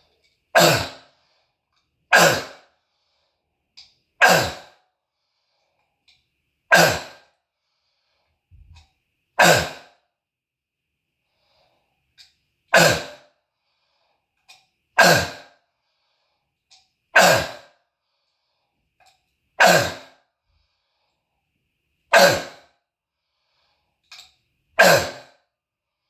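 An adult man's loud, harsh barking cough: eleven single coughs, one every two to three seconds, each ringing briefly off the walls of the room. He calls it a seal-like barking croup cough from a narrowed windpipe.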